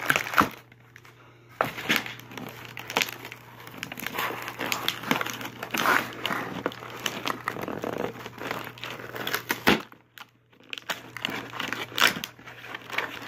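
Toy packaging being torn open close to the microphone, crinkling and crackling loudly, with two short pauses; it is the package of a Bakugan Pyrus Phadreus figure being opened.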